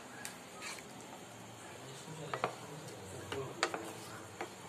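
Spatula knocking and scraping against a pan while stirring gravy: a handful of sharp clicks and taps, the loudest a little past halfway.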